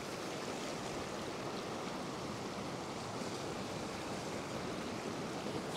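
Ocean surf washing over and around a rock shelf: a steady, even rush of breaking waves and wash.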